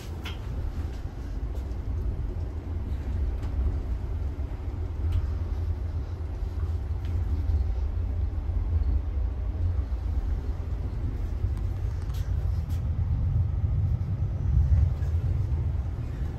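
Steady low rumble of a moving train, heard inside a passenger coach, with a couple of faint clicks about twelve seconds in.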